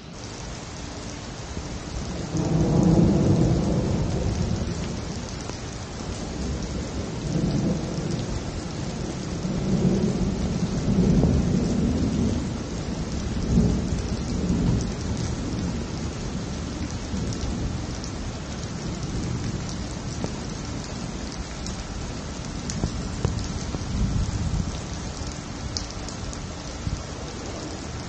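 Thunderstorm: steady rain falling throughout, with rolling thunder, a long low rumble that swells about two seconds in and again around ten seconds in, then dies down to fainter rumbles.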